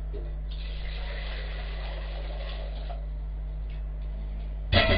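Broth being mixed with vegetable puree in a pot on the stove: a soft hiss lasting a couple of seconds, then one sharp knock near the end, over a steady low hum.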